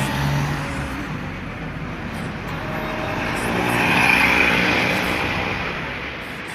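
A motor vehicle passing by: engine and tyre noise builds to its loudest about four seconds in, then fades away.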